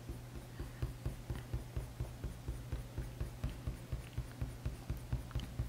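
Polychromos coloured pencil rubbing on drawing paper in quick short strokes, about four or five a second, over a low steady hum.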